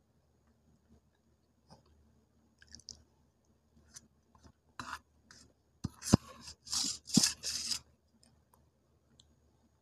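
Steel spoon scooping and scraping thick wet fuller's earth (multani mitti) paste in a steel bowl, with soft wet clicks. About five seconds in comes a louder run of scrapes and sharp clinks, loudest near the six- and seven-second marks.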